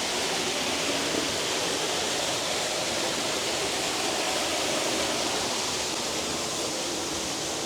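A waterfall rushing: a steady, even wash of falling water.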